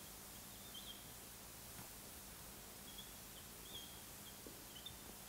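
Near silence: room tone with a faint low hum, and a few faint, short high-pitched squeaks about a second in and again several times from about three seconds on.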